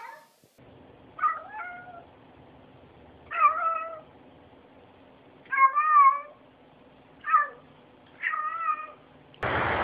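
Domestic cat meowing five times in short calls with a wavering pitch. A loud rushing noise starts near the end.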